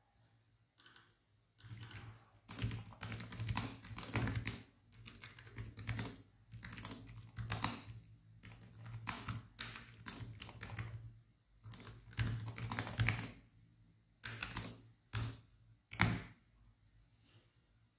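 Typing on a computer keyboard in quick bursts of keystrokes with short pauses, ending in a few separate key presses.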